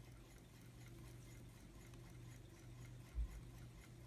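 Quiet workbench room tone with a steady low electrical hum and faint scattered small clicks, and one soft low thump about three seconds in.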